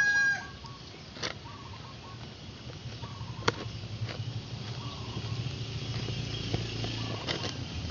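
A rooster's crow trails off just after the start, followed by short, faint clucks now and then from chickens, with a few sharp clicks and a low rumble of handling noise that grows toward the end.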